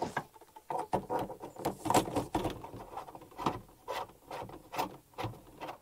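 Handling noise from a flexible corrugated plastic drain hose and its fittings being worked onto a sink drain: a string of irregular clicks and knocks against the plywood cabinet, with plastic rubbing in between.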